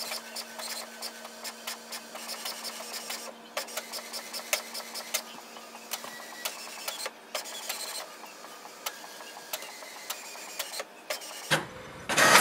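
HP Envy 6055e inkjet printer printing an alignment page: the print head carriage shuttles with rapid ticks and clicks over a steady motor hum as the sheet feeds out. The hum fades about eight seconds in, and there is a louder noise near the end.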